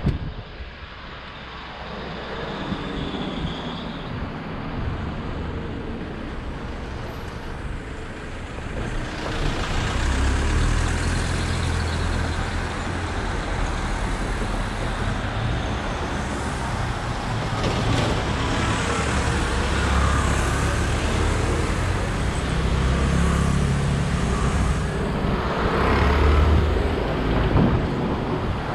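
Street traffic noise with motor vehicle engines running close by, growing louder about ten seconds in and staying loud.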